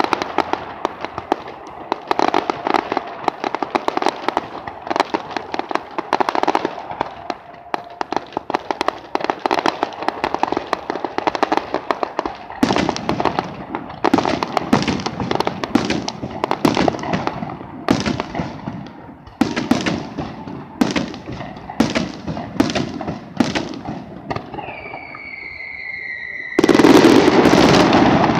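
Aerial fireworks display: a dense run of rapid crackling bangs, then separate sharp bursts about a second apart. Near the end a whistle falls in pitch, and then a sudden loud continuous rush sets in.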